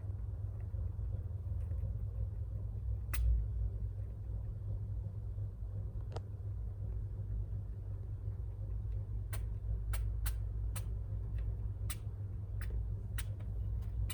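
Short, sharp sneeze-like bursts from a small pet, taken for sneezes though the owner is not sure: one about three seconds in, another about six seconds in, then about eight in quick succession near the end. A steady low rumble runs underneath.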